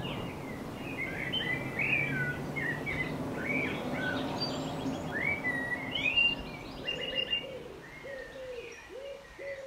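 Songbirds singing and chirping, a busy run of short, varied warbled phrases, joined near the end by lower repeated cooing notes.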